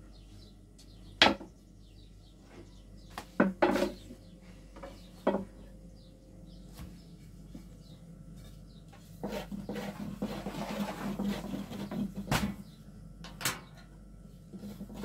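Long thin wooden rolling pins knocking against low wooden boards as thin flatbread dough is rolled out, a scattered series of sharp knocks. Between them is a stretch of soft rustling.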